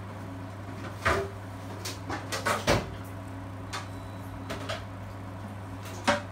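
Kitchen clatter: a few sharp knocks and clicks, the loudest about a second in, a cluster around two and a half seconds and one near the end, over a steady low hum.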